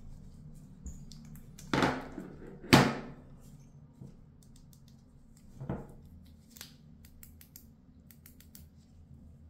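Handling noises: a scraping rustle about two seconds in, then a sharp knock (the loudest sound), a softer knock near six seconds, and light clicks and taps after it, over a faint low hum.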